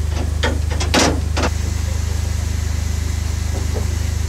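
Steam locomotive of a narrow-gauge train standing at a halt, heard from its cab: a steady low rumble with a fast flutter. A few short knocks and clicks come in the first second and a half, the loudest about a second in.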